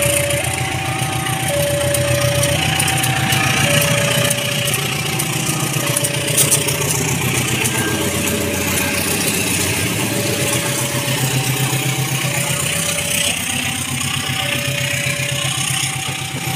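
Level-crossing warning alarm sounding a two-tone chime, alternating high and low notes about once a second, over the engine hum and rumble of a passenger train hauled by a CC 201 diesel-electric locomotive running past.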